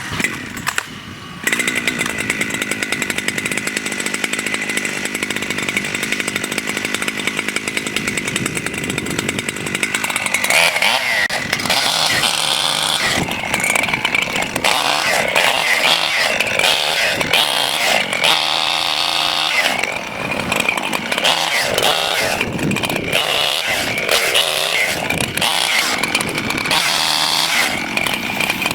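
A chainsaw running. It holds a steady pitch for the first ten seconds or so, then revs up and down again and again as it cuts into the felled dead oak.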